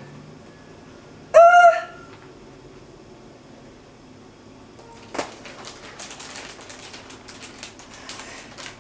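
One short high-pitched cry about a second and a half in, followed from about five seconds on by repeated water splashing and sloshing in an inflatable birth pool as a woman in it shifts her position.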